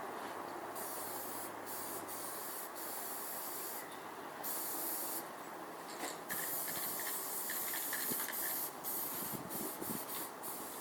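Steady spraying hiss, with a sharper, higher hiss switching on and off in several short bursts, more of them in the second half.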